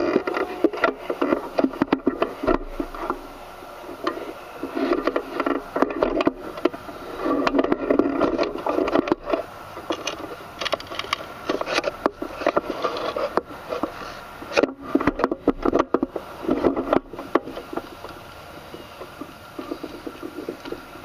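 Irregular scraping, rubbing and knocking with many short clicks, the kind of handling noise a rig makes when it is moved and jostled.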